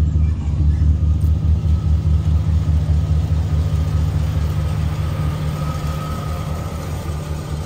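Chevrolet Caprice Classic (box Chevy) engine idling steadily, a deep, evenly pulsing exhaust rumble heard close to the tailpipe.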